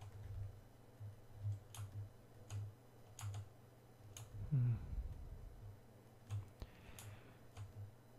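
Scattered, quiet computer mouse and keyboard clicks, spaced irregularly, with one brief, louder low sound a little past halfway.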